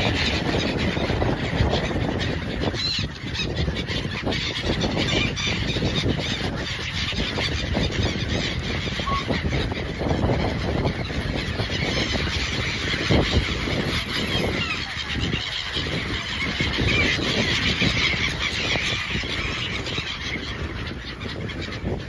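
A large flock of gulls calling continuously, many overlapping cries at once, over a steady low rumble.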